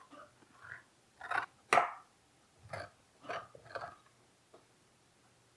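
Seeds and stringy pulp being scraped out of a halved raw spaghetti squash: about six short scraping strokes, irregularly spaced.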